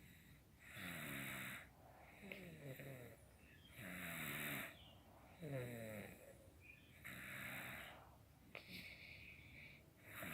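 A sleeper snoring in a steady rhythm, about one breath every three seconds. A breathy rush of air alternates with a rattling snore that falls in pitch, with a single sharp click near the end.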